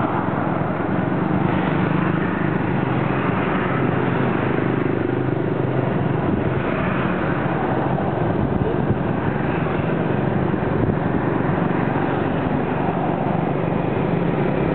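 Steady engine and road noise heard from the passenger seat of a motorcycle-drawn tuk-tuk, its engine running at a constant pace, with motorbike and car traffic passing.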